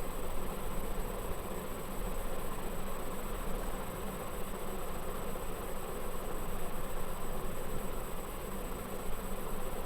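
Steady buzzing hum with hiss, unchanging throughout: background noise of the recording.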